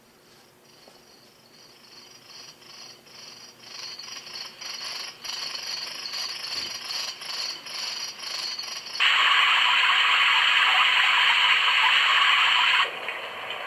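A tinnitus-relief sound machine playing nature sounds. A rhythmic high-pitched pulsing, a few pulses a second, grows louder from faint. About nine seconds in it cuts abruptly to a loud, steady rushing noise, which changes to a lower rushing sound near the end.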